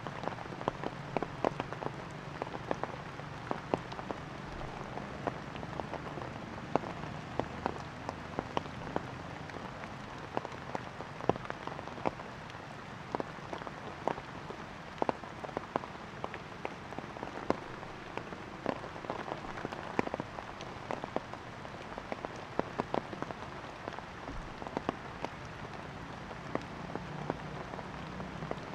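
Rain falling: a steady hiss with many irregular sharp drops striking close surfaces.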